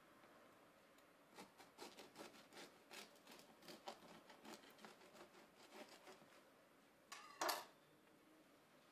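A bread knife sawing through the crust of a multigrain loaf: a run of quiet rasping strokes, about four a second, for several seconds. Near the end, one brief louder rustle as the cut slice comes away, the loudest sound here.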